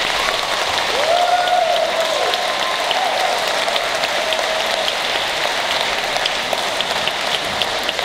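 Audience applauding steadily: a dense spread of hand claps, with a few faint voices calling out from the crowd.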